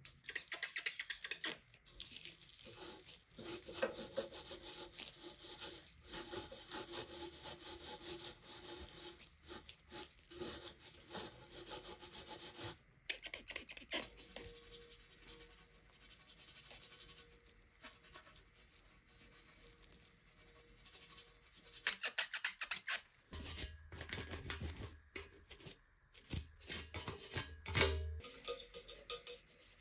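Rapid rubbing strokes on a hard surface, in a long run for about the first half and then lighter, with a few dull knocks near the end.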